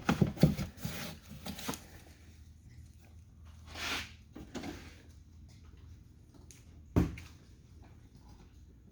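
Handling noise from work inside an opened truck door: clicks and knocks in the first couple of seconds, a short rustle about four seconds in, and one sharp thump about seven seconds in.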